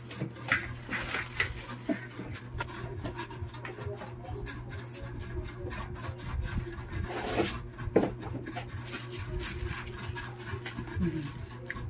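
Plastic wrapping crinkling and a cardboard box being handled during unpacking: irregular rustles, scrapes and light taps, over a steady low hum.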